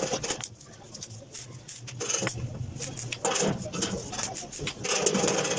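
Hand hammer striking freshly tack-welded sheet steel, chipping slag off the welds: bursts of sharp metallic clinks and scraping, in three clusters.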